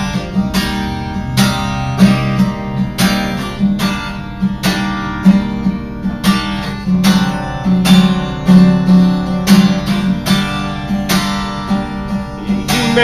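Acoustic guitar strummed alone in a steady rhythm of evenly spaced chord strokes, an instrumental break with no singing.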